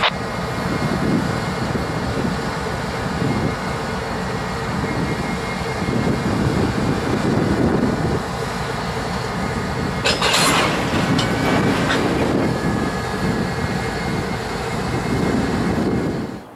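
Union Pacific diesel-electric locomotive passing slowly at close range, its engine running with a steady whine above it and the rumble of wheels on rail. About ten seconds in, a short hiss rises over it for about a second.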